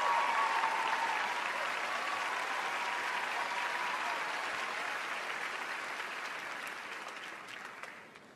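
Large audience applauding, the applause dying away near the end.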